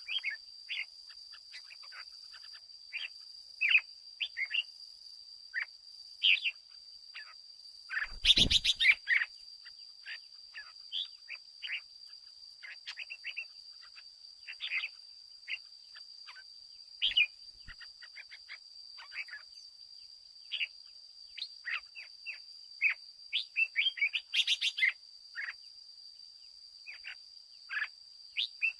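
Red-whiskered bulbul calling and singing in short, rapid chirps and phrases, over a steady high-pitched tone. Two loud harsh bursts break in, one about a third of the way through and one near the end.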